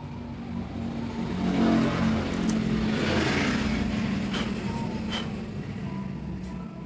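A motor vehicle passing by: its engine sound swells to a peak about two seconds in, then fades slowly. A few light clicks sound over it.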